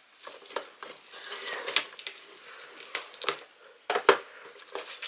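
Utility knife slicing the shrink-wrap plastic along the edge of a boxed album, with the film crinkling and tearing in a run of short crackles. The loudest crackles come about three and four seconds in as the wrap splits open.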